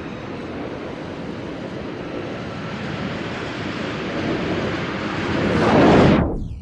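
A rushing, wind-like monster-film sound effect from the Heisei Gamera films. It builds steadily, swells to its loudest near the end, then dies away quickly.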